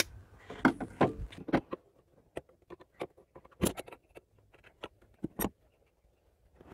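Pliers and metal hose clamps clicking and clinking as rubber pipes are worked loose in an engine bay. The taps come irregularly, with a few sharper knocks about a second in, near four seconds and twice near five and a half seconds.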